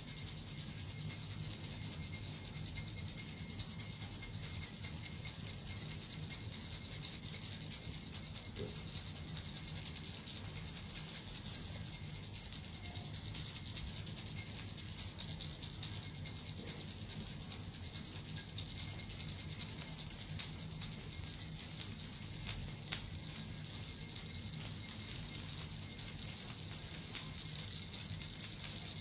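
Small jingle bells (suzu) shaken continuously and evenly, giving an unbroken bright jingling.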